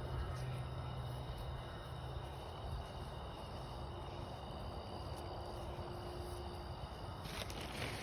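Night insects such as crickets chirring steadily in several high, unbroken tones over a low, even background rumble, with a brief rustle near the end.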